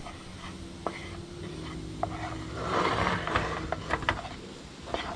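Flour and bacon grease sizzling in a skillet as a roux is cooked, with a metal slotted spatula scraping and tapping against the pan as it is stirred. The sizzle swells louder about three seconds in.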